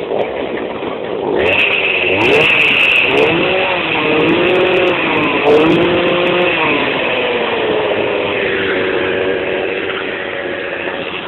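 Homemade go-kart's two-stroke chainsaw engine running, revving up and down several times about two seconds in, then settling to a steadier speed. A steady high whine joins in about a second and a half in.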